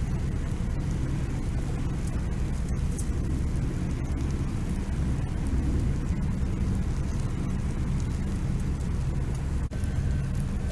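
Steady low engine drone, with a brief drop in level near the end.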